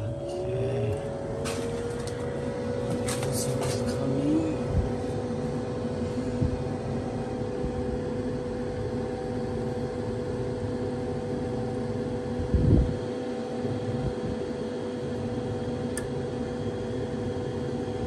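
A Bryant gas furnace's newly replaced draft inducer motor starting up on the first fire-up after repair. It spins up with a rising whine over the first couple of seconds, then runs with a steady hum. A few light clicks come in the first few seconds, and a single thump about two-thirds of the way in.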